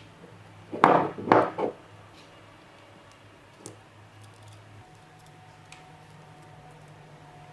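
Small metal parts of a miniature four-stroke model engine being handled and fitted together: a quick run of three knocks and clatters about a second in, then a few faint clicks as the starter motor is seated.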